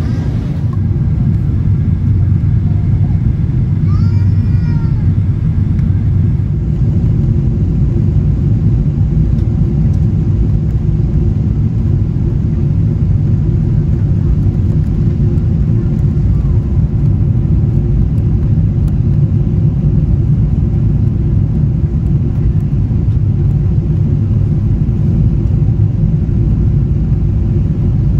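Steady low rumble of a Boeing 777's engines and rushing air heard inside the cabin at a window seat over the wing, on short final approach just before touchdown.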